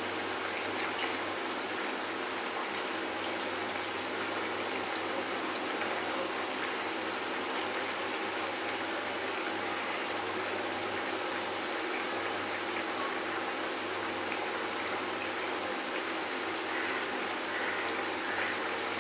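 Mutton curry gravy simmering uncovered in a steel pan on a low flame: a steady bubbling hiss.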